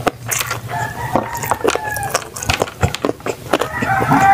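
A rooster crowing twice, each crow about a second long, over close-up eating sounds: chewing, lip smacks and sharp clicks.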